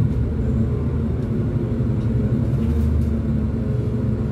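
Scania N280UB city bus's five-cylinder compressed-natural-gas engine running steadily with its Voith DIWA automatic gearbox, heard from inside the cabin as the bus drives along.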